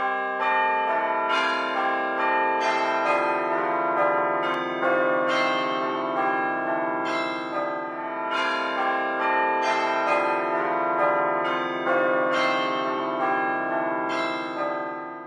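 Church bells ringing a peal, a new bell struck about twice a second over the overlapping hum of the ones before, fading out at the very end.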